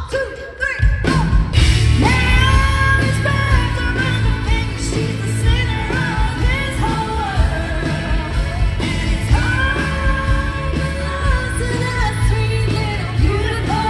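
A live pop-country band kicks in about a second in, right after a count-in, with a woman singing the lead vocal over drums, bass and guitars, heard through a theatre's PA from the audience.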